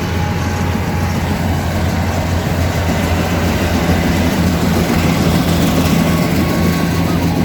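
Yanmar AW70V combine harvester's diesel engine running steadily, with a deep, unchanging hum.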